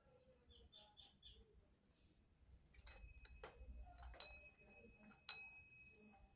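Near silence with faint bird chirps and a few soft clicks.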